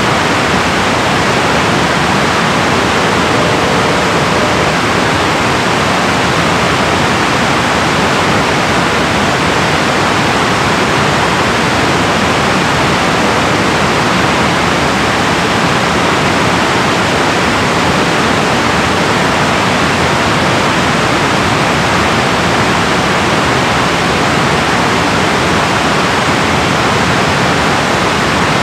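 Water pouring through a river dam, a loud, steady, unbroken rush.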